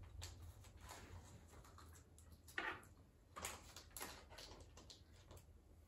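Near silence: room tone with a low hum and a few faint handling noises and small clicks from work at the counter, one slightly louder rustle about two and a half seconds in.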